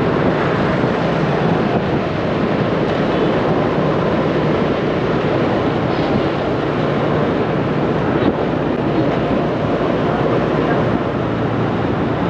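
Steady road and traffic noise from riding along a busy city boulevard, with wind rushing over the microphone.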